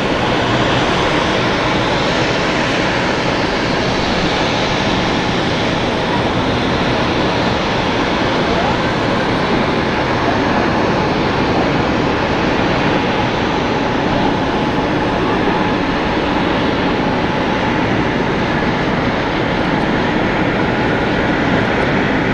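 Jet airliner engines running, a steady even rushing noise with no change in level.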